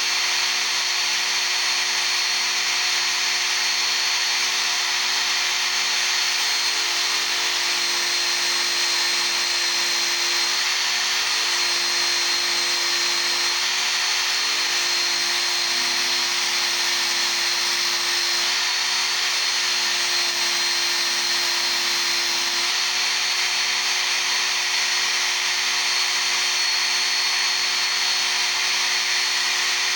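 Work Sharp Ken Onion Edition belt sharpener running with a steel chisel held against its abrasive belt: a steady grinding of belt on steel over the hum of the motor, the motor's tone shifting slightly now and then.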